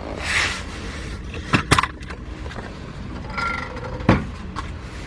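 Metal tools and parts clinking and knocking under the car: a short scrape near the start, two quick clicks a little under two seconds in, and a sharper knock about four seconds in.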